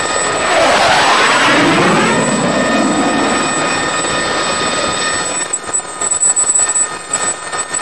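A low-flying jet aircraft passes close by. Its engine noise sweeps down in pitch over about three seconds with a phasing whoosh. Near the end the noise turns uneven and gusty.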